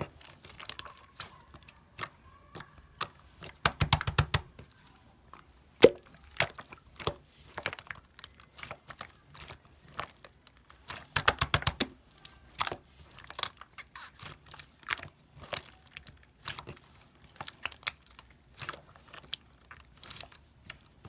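A small batch of slime being mixed and squeezed by hand: sticky clicks, crackles and pops, with two bursts of fast crackling about four seconds in and again near the middle.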